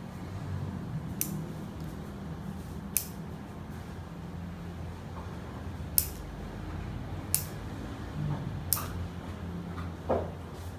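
Bonsai scissors snipping at a small tree: five sharp snips a second or two apart, over a low steady hum.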